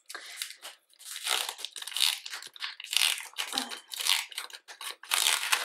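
Clear plastic sleeve around a stack of large photo cards crinkling in irregular bursts as hands work it open.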